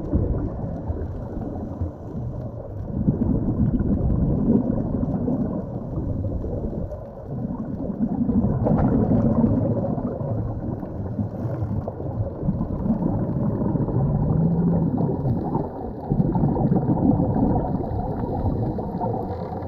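Diver's exhaled bubbles rumbling and gurgling in surges every few seconds, muffled and deep as heard underwater.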